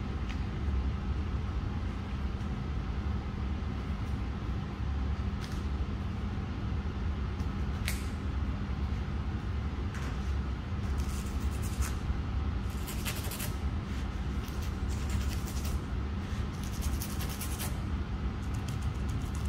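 Steady low rumble with a faint constant hum. Several short scratchy rubbing sounds come in the second half.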